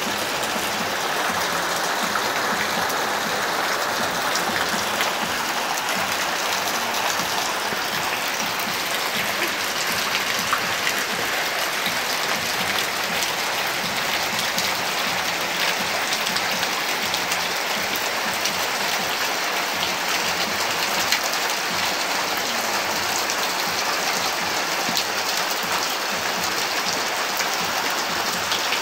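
Steady rain falling, an even hiss flecked with many small drop hits.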